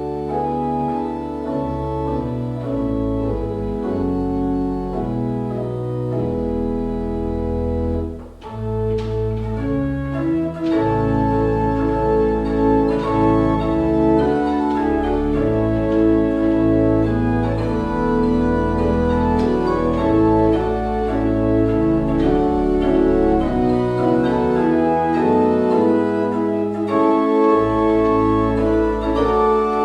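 Organ playing slow, sustained hymn-style chords over held bass notes. The music dips briefly about eight seconds in, then comes back fuller and louder.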